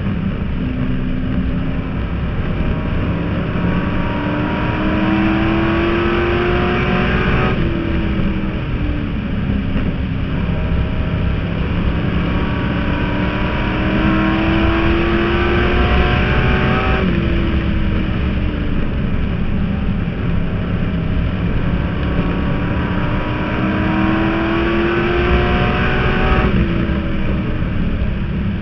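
Stock car engine heard from inside the cockpit at speed on an oval. Its pitch climbs for several seconds, then drops suddenly, three times about nine seconds apart, under heavy road and wind noise.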